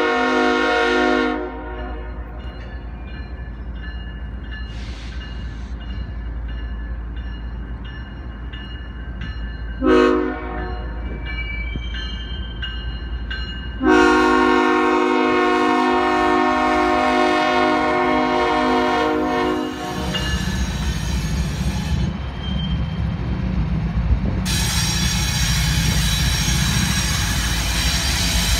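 Freight train locomotive horn sounding a chord in blasts: one ending about a second in, a short toot about ten seconds in, and a long blast of about six seconds starting near the middle, over the low rumble of the diesel locomotives. After the horn, the covered hopper cars roll past with a heavier rumble and, near the end, loud wheel and rail noise.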